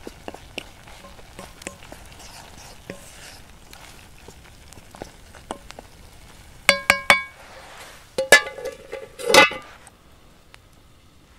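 A wooden spoon stirring rice in a black metal cooking pot with light scrapes and clicks, then about four quick ringing knocks on the pot. Near the end a metal lid clatters and rings as it is set on the pot, the loudest sound.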